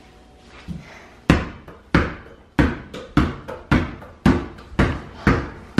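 A child dribbling a Wilson basketball on a tile floor: about eight sharp bounces, starting about a second in and coming close to two a second, getting slightly quicker toward the end.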